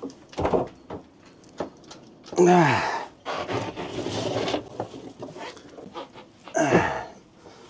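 A man's grunts and heavy breaths of effort as he hauls coils of rope out of a boat cabin: three short groans that fall in pitch, the loudest about two and a half seconds in. Between them come rustling and light knocks of the rope and gear being handled.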